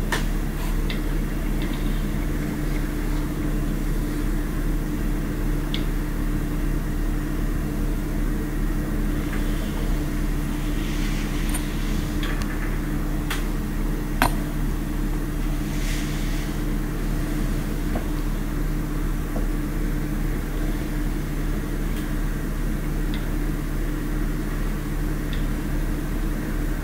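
Steady low mechanical hum, unchanging throughout, with a single sharp click about fourteen seconds in and a couple of faint soft rustles.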